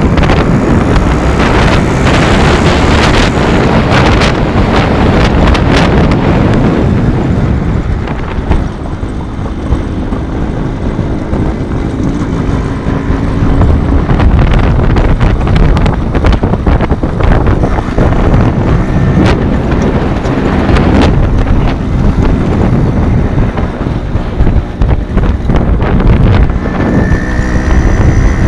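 Heavy wind buffeting on the microphone of a moving motorcycle, over the steady running of the motorcycle engines on the road.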